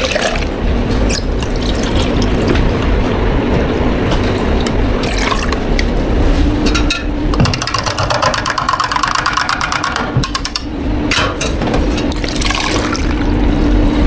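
Liquid pouring and splashing as a fruit tea is made behind a bubble tea counter, over a steady machine hum. A rapid run of clicks lasts a couple of seconds in the middle.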